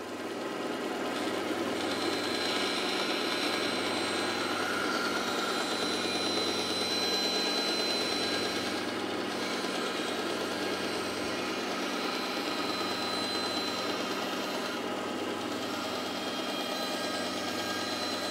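Bandsaw running and cutting through a curved board of solid wood, hand-fed steadily: a steady whir with a faint high whine that comes and goes.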